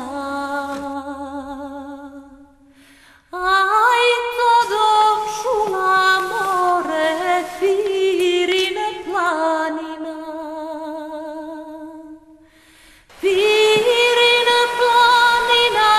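A woman singing an unaccompanied folk song in long held notes with a wavering vibrato. She breaks off briefly twice, about three seconds in and again near thirteen seconds.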